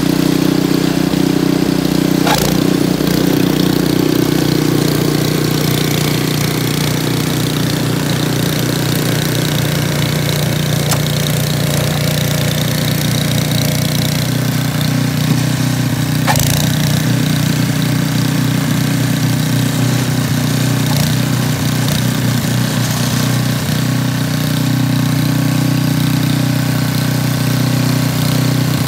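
Two-stage snow blower's small gasoline engine running steadily, with two brief knocks, one about two seconds in and one about sixteen seconds in.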